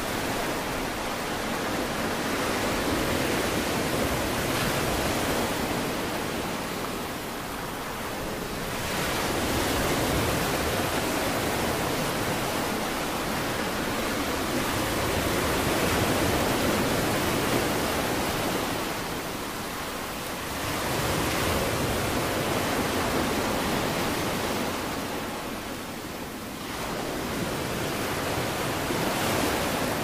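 Ocean surf: a steady rush of breaking waves that swells and eases every several seconds.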